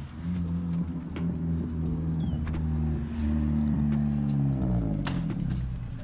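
1997 Honda Civic hatchback engine running under way, a steady engine note that drops in pitch near the end as the car slows.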